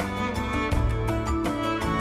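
Background music: held string melody over a steady beat.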